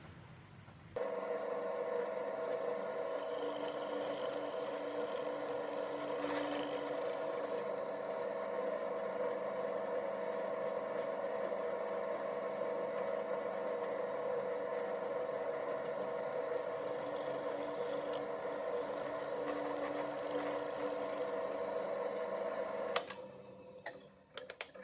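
Electric motor of a woodworking power tool running at a steady speed. It starts abruptly about a second in and stops with a click near the end, followed by a few light knocks.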